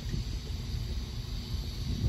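Wind buffeting the microphone in uneven gusts over the faint, steady rumble of a departing diesel train.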